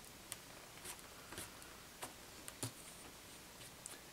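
Faint, irregular light taps and soft rubs as hands and a foam paint brush handle a hardback book-cover board.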